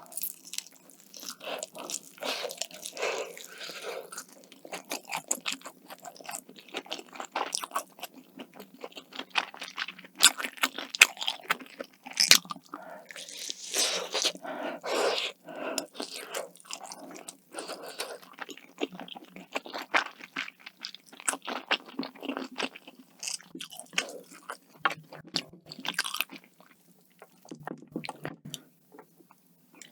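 Close-miked eating: crisp crunching bites and chewing in irregular bursts.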